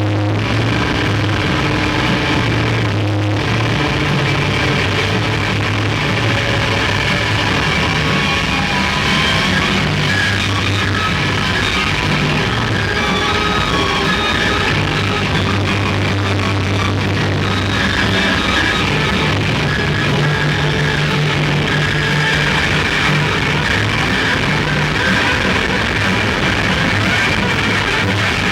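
A rock band playing live, loud and dense: distorted electric guitars in a noisy, chaotic passage over sustained bass notes that shift pitch every few seconds.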